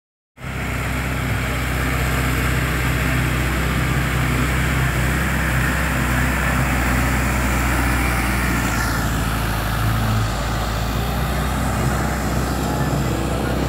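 Solis 60 HP tractor's diesel engine running at a steady speed as the tractor drives on steel cage wheels through a flooded paddy track. The low engine hum sits under a constant hiss.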